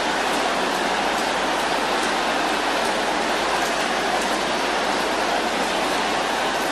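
A large congregation praying aloud all at once, a steady roar of many voices blended into one dense wash.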